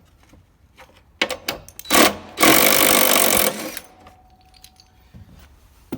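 Cordless impact driver with a 13mm socket hammering for just under two seconds while running out a long brake-light bolt, after a few sharp clicks and knocks.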